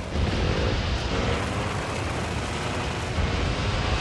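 Snowmobile engine running hard under a loud, deep rumbling rush that comes in abruptly just after the start, with a faint rising whine of the engine revving.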